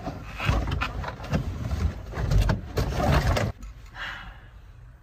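Irregular knocking, rattling and rustling of plastic dashboard parts being handled and pulled inside a car's cabin. It stops after about three and a half seconds, with a short scrape about four seconds in.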